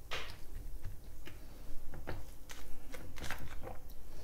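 Kitchen tongs clicking and tapping against a frying pan and plate while cooked bucatini is lifted out and served: a string of light, irregular clicks.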